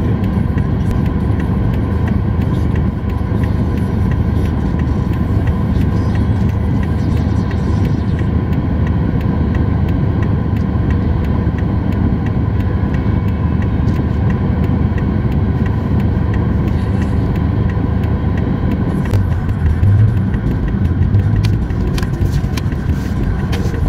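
Car engine and road noise heard from inside the cabin as the car is driven through a U-turn: a steady low rumble.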